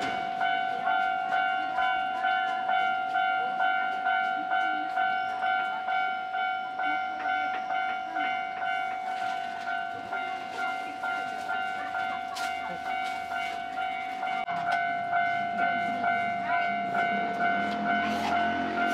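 Japanese railway level-crossing warning bell ringing: a steady two-tone ding repeated about one and a half times a second, signalling an approaching train. Near the end a lower rumble of the train comes in under it.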